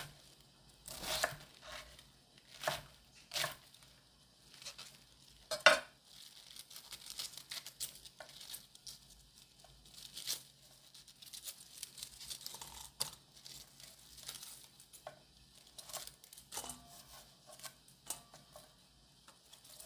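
Kitchen knife cutting through fresh cabbage onto a wooden chopping board, with crisp crunches and knocks against the board, and cabbage leaves being torn and pulled apart by hand. The loudest knock comes about six seconds in.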